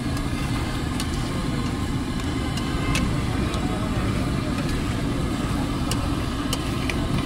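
Liver (kaleji) frying on a large steel tawa griddle: a steady low rumble with sizzling over it, and a few sharp clicks of the metal spatula against the griddle.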